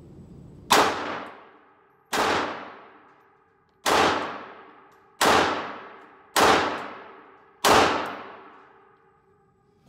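Six shots from a Glock 42 .380 ACP pistol, fired one at a time at a steady pace about a second and a half apart. Each shot is a sharp crack followed by a long ringing decay in an indoor range.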